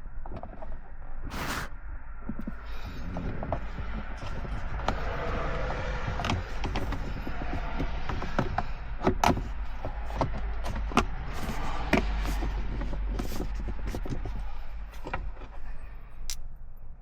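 Clicks and knocks of plastic center console parts being handled and fitted, scattered irregularly over a steady low rumble.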